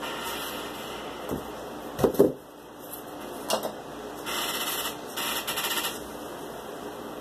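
Cardboard and hand tools being handled on a wooden desk: a few knocks and taps, the loudest two close together about two seconds in, then two rasping stretches of under a second each, midway through.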